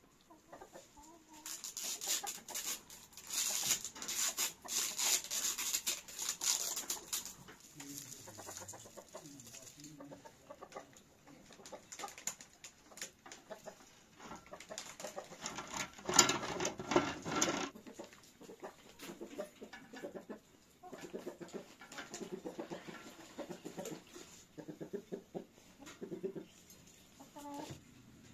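Domestic chickens clucking now and then, with one louder call a little past the middle. Near the start there is a few-second run of rustling handling noise.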